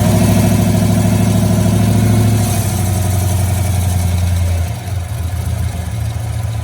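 Engine of a cammed Chevrolet Silverado running with a choppy, lumpy idle from its aftermarket camshaft, held slightly up for the first couple of seconds, then settling lower near the end. A fainter wavering higher tone runs over it early on, likely the screech the owner is asking about.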